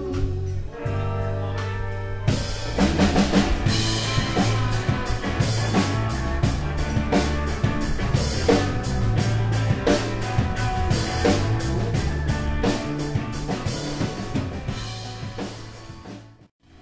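Live rock band of electric guitars and a drum kit playing an instrumental passage. A held chord rings for about two seconds, then the drums come in with busy, steady hits under the guitars. The sound fades out briefly just before the end.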